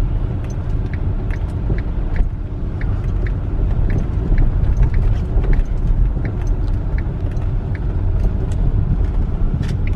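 Car driving on a snowy road, heard from inside the cabin: a steady low rumble of engine and tyres, with faint light ticks scattered through it.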